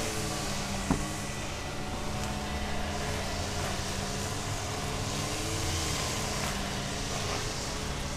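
Motorized string trimmers cutting grass, their engines whining and wavering up and down in pitch over a steady low hum. There is a single sharp click about a second in.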